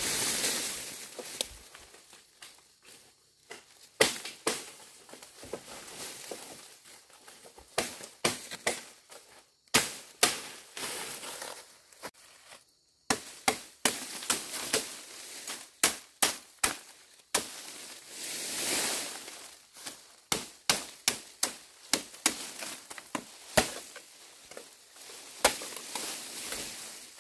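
Bamboo being chopped with a blade: many sharp, irregular strikes, a few at a time with short pauses between, and a couple of longer rustling stretches.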